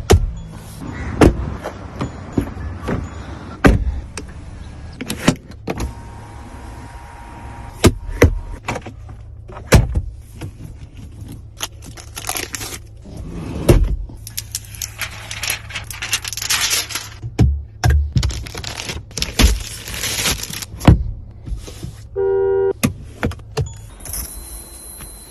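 A Mahindra XUV700 being worked part by part: a run of sharp clicks and clunks of latches, buttons and doors, with stretches of electric motor whirring between them. Near the end comes a short electronic chime, then a steady high tone with hiss.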